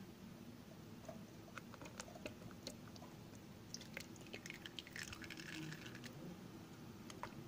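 Lemon syrup poured from a pan through a metal mesh strainer into a plastic jug, splashing for about two seconds, with a few light clicks and taps before the pour begins.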